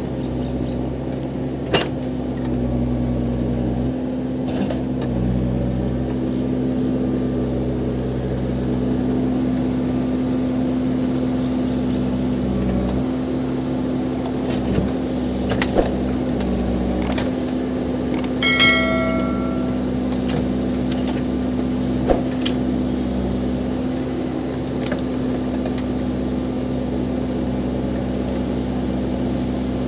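Case 580 Super M backhoe loader's diesel engine running steadily, with a few sharp knocks and a brief metallic ring a little past the middle.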